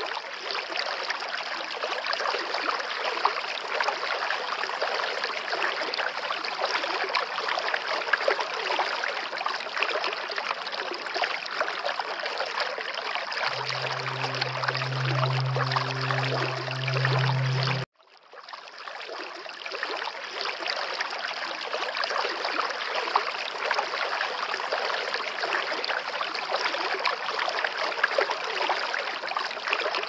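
Steady rushing, trickling water noise. A low hum joins it for a few seconds past the middle, then everything cuts out abruptly for a moment and the water fades back in.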